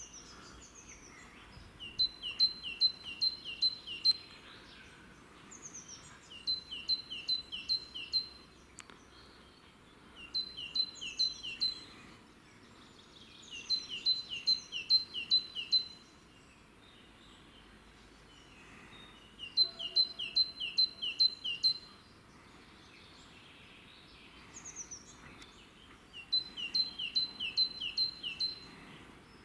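A songbird singing the same short phrase six times with pauses between. Each phrase is a quick run of about six identical paired notes, one note steady and one falling, lasting about two seconds, over a faint steady background hiss.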